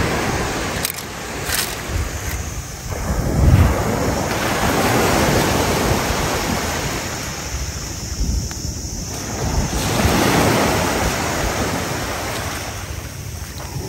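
Small waves breaking and washing up a sandy beach, the surf swelling and fading several times, with wind rumbling on the microphone.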